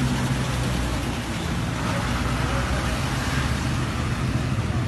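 A motor vehicle engine running steadily: a low hum under an even rushing noise.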